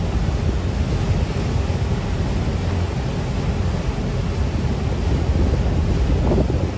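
Steady low rumble of a river tour boat under way, with wind buffeting the microphone and water rushing past the hull.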